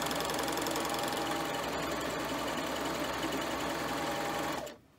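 Baby Lock Vibrant four-thread serger running steadily as it stitches along fabric, its knife trimming off the edge; the machine stops briefly near the end.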